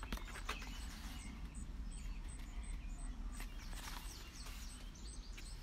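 Pages of a paperback book rustling as they are flipped, over steady outdoor background noise.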